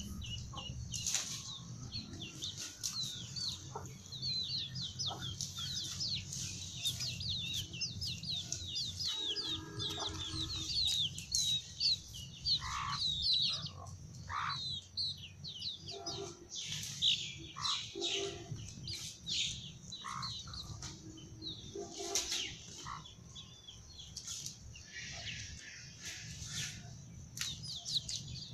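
A brood of desi chicks peeping constantly in quick, high cheeps, with the mother hen giving lower clucks now and then through the middle stretch.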